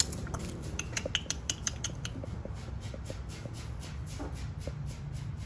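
Quick run of light clicks and clinks, densest in the first two seconds and sparser after, as a Shih Tzu puppy moves about inside a wire exercise pen on concrete. A steady low rumble lies under it.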